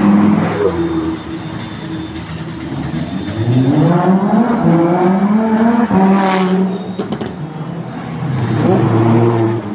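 Lamborghini Huracán supercars' V10 engines revving as they drive past one after another. The engine note falls as one car goes by close at the start, then climbs in pitch twice, about three to six seconds in and again near the end.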